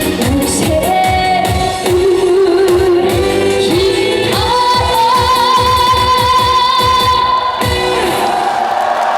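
Female singer singing a Korean trot song live over a band with a steady drum beat, ending on a long held high note with vibrato. The band stops near the end.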